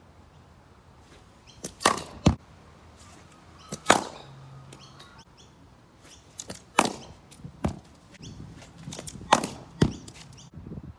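Cricket ball and bat in net practice: about half a dozen sharp knocks as throw-downs bounce on the synthetic pitch and are struck with the bat, some in pairs about half a second apart.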